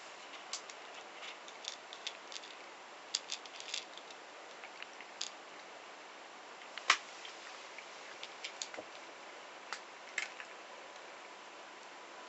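A cat crunching dry kibble from a bowl: small irregular crunches and clicks, with one sharper click about seven seconds in.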